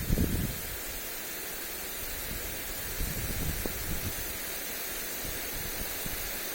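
Lawn sprinkler spraying water over grass, a steady hiss, with wind rumbling on the microphone in gusts, strongest near the start.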